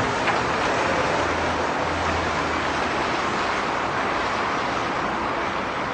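Steady noise of running vehicle engines, an even rush with a faint low hum.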